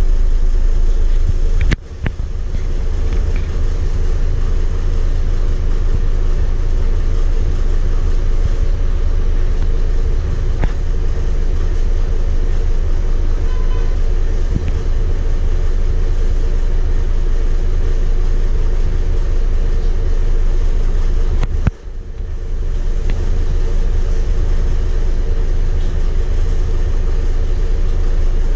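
Scania DC9 8.9-litre five-cylinder diesel of a Scania K230UB bus idling steadily, heard from inside the passenger cabin. Twice the sound dips sharply with a click and builds back over about a second.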